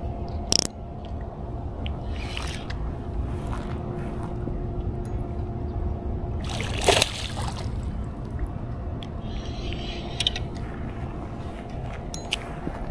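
Water sloshing at the water's edge over a steady low rumble, with a short sharp sound about seven seconds in.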